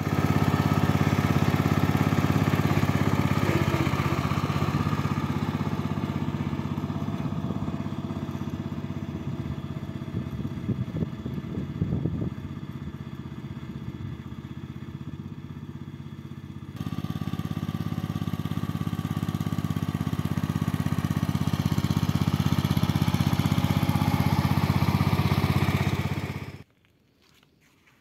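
Castelgarden JTP 92 ride-on lawn tractor's engine running steadily as the mower is driven over grass. It grows fainter as the mower moves away, comes back loud all at once about two-thirds of the way through, and cuts off suddenly shortly before the end.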